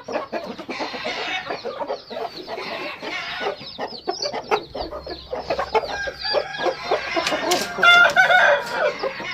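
Aseel chickens clucking and calling continuously, with a rooster crowing loudly near the end.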